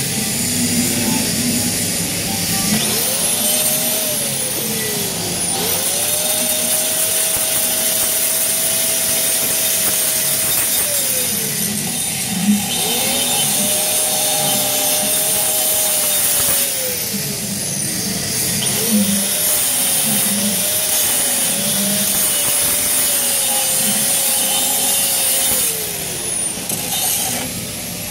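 Hand-held grinder grinding metal: its whine rises as it spins up, holds while it cuts and falls away as it winds down, four times in a row, the last run wavering as it bites. A steady high hiss sits under it.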